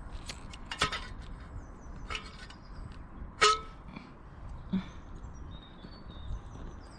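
Outdoor ambience: a steady low hiss with faint high chirps of small birds, broken by a few sharp snaps. The loudest snap comes about three and a half seconds in and carries a short falling tone.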